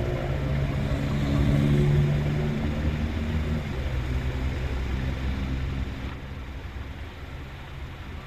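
ASC Tempest T-128 tornado siren's growl sliding down in pitch and dying away in the first second, giving way to the low steady engine hum of a passing road vehicle that swells about two seconds in and then fades.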